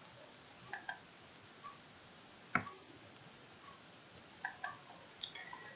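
Computer mouse buttons clicking: a few faint, sharp clicks, several in quick pairs, with one stronger click near the middle.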